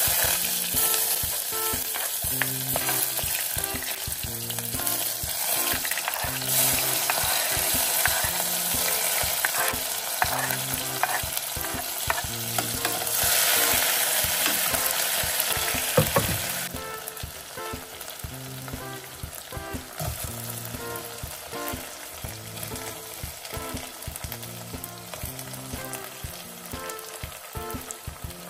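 Chopped red onions sizzling in a hot pot, with stirring clicks from a plastic spoon. The sizzle is loud for the first two-thirds, then drops suddenly to a quieter, steady frying.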